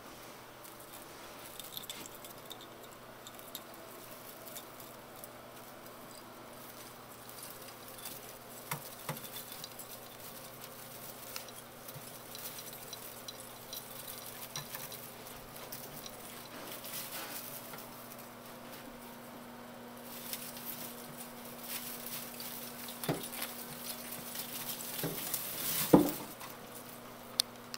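Faint rustling and scattered small clicks of an artificial Christmas tree's branches as a cat climbs and moves about inside it. A sharper knock comes near the end, over a steady low hum.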